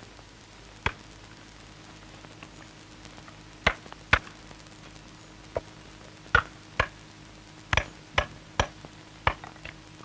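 A stonecutter's small hammer giving short, light blows to staves of whetstone stone to split them into single whetstones: about ten sharp taps at irregular intervals, over a faint steady hum.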